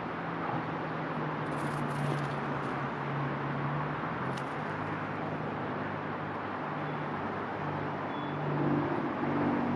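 Steady outdoor background noise: a broad hiss over a low hum, like distant road traffic. A few faint high-pitched chirps come about one and a half to two seconds in and again near four and a half seconds.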